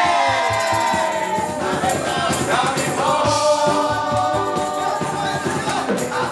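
A group of voices singing together over a backing track with a steady beat, opening on a long held note.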